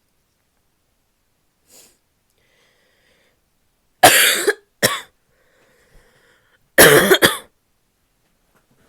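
A woman's barky cough: a harsh cough about four seconds in with a short second one right after it, then another double cough about three seconds later, with faint breaths between.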